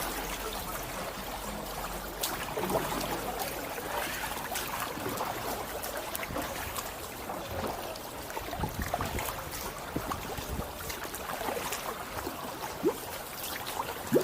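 Kayak paddle dipping into canal water, with small splashes and water trickling and dripping off the blade.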